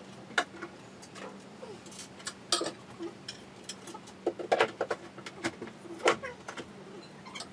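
Irregular knocks and clatter of laminated chipboard furniture panels being handled and fitted together, with the sharpest knocks about half a second, two and a half, four and a half and six seconds in.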